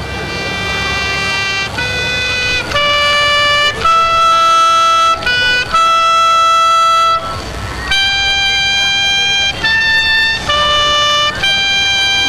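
Music: a slow solo melody of about ten long, steady held notes on a trumpet-like wind instrument, with a brief gap a little past halfway.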